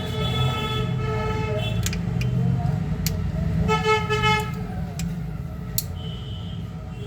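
Road traffic rumbling steadily, with a vehicle horn sounding twice: a long toot at the start and a shorter one about halfway through.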